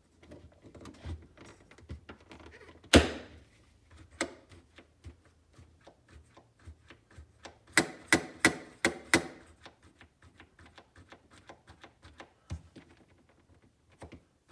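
Plastic clicks and knocks of a refrigerator door light switch being fitted back into its mounting: one loud thunk about three seconds in, then a quick run of five sharp clicks near the middle.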